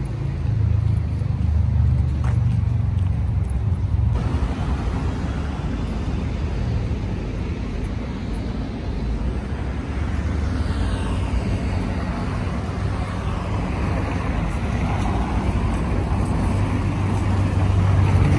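City road traffic: cars driving along a cobbled street over a steady low rumble, with one passing by about ten seconds in.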